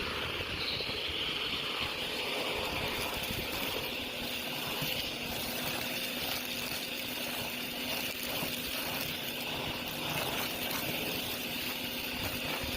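Vacuum cleaner running steadily: a constant motor hum under an even rush of air.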